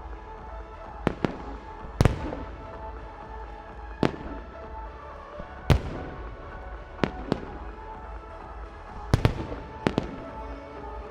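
Aerial firework shells bursting in a pyromusical display: sharp booming reports, about ten of them, some in quick pairs, each trailing a short echo, over music played through the show's loudspeakers.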